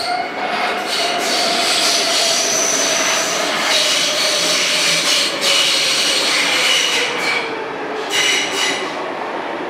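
Munich U-Bahn train pulling into an underground station. High wheel squeal sits over the running noise, and a motor whine slowly falls in pitch as the train slows.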